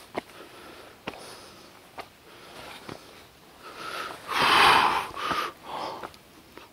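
A person breathing hard while climbing a steep rocky trail, with a loud blown exhale about four seconds in and shorter puffs after it. Footsteps click on rock about once a second.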